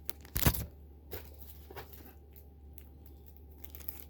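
Small merchandise being handled: a sharp knock about half a second in, then a few faint clicks, over a steady low hum.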